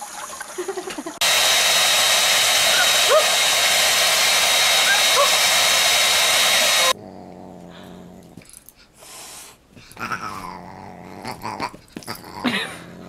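Tap water running briefly, then a handheld hair dryer blowing: a steady, loud rush that starts about a second in and cuts off suddenly about seven seconds in. After it, much quieter, a dog growling at play.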